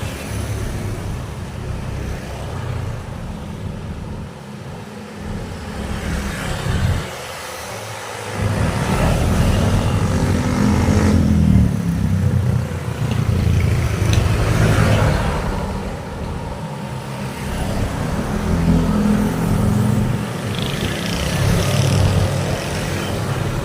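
Road traffic: motor vehicles passing one after another, engine noise swelling and fading as each goes by, loudest about nine to twelve seconds in.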